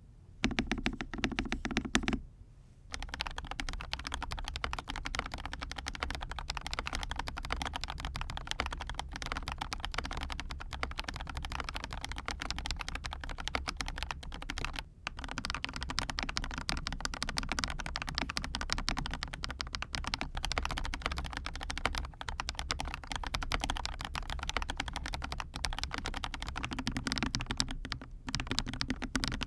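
Rapid, continuous typing on a mechanical keyboard with BSUN Aniya Pink linear switches, a dense run of key clacks. The sound changes over in short clips between unlubricated and lubricated switches, with brief breaks at each change.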